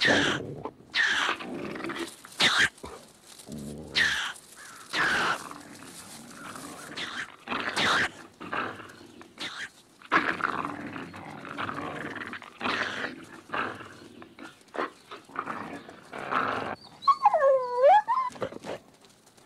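Coyote and ringtail fighting: a run of sharp snarls and growls, and near the end one long pitched squeal that dips and then rises.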